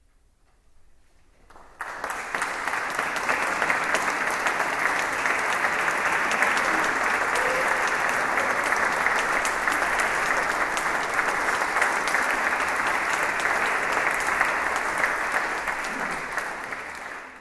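Audience applause after a short near-silence: clapping starts suddenly about two seconds in, holds steady, and fades out near the end.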